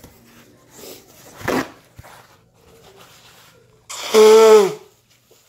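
A man blowing his nose hard into a paper towel, one loud honking blow lasting under a second about four seconds in, its pitch dropping at the end. His nose is running and blocked from the heat of a Carolina Reaper chip. A shorter, quieter snort-like breath comes about a second and a half in.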